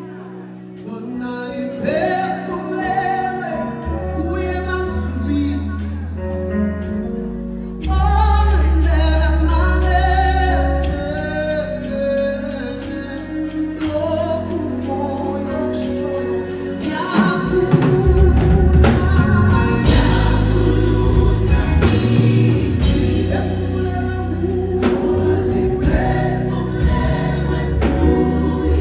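Gospel music: singing, with a choir, over instrumental accompaniment with long held bass notes. A little past halfway the music gets louder and a steady beat comes in.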